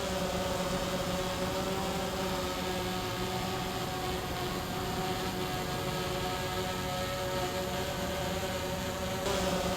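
Multirotor drone's propellers humming steadily in flight, several steady, slightly wavering pitches at once.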